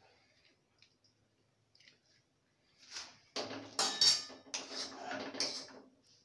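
A metal spoon scraping and clinking against a steel karahi. The clatter starts about halfway through and lasts about three seconds.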